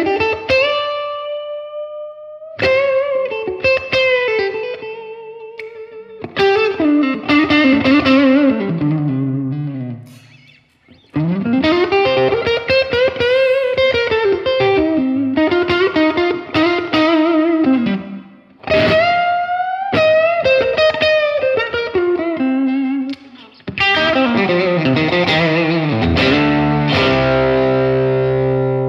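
Telecaster-style electric guitar played through a Blackstar HT-5R MkII 5-watt valve combo amp on its Clean Voice 2 setting. Lead phrases of single notes with string bends and vibrato, broken by two short pauses, then chords near the end, the last one left ringing.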